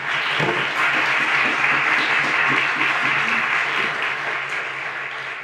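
An audience applauding in a steady burst of clapping that tapers off near the end.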